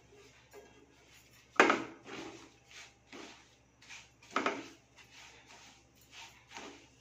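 Red silicone spatula stirring chopped strawberries and sugar in a nonstick pan, scraping and knocking against the pan in short strokes. The two loudest knocks come about a second and a half in and about four and a half seconds in.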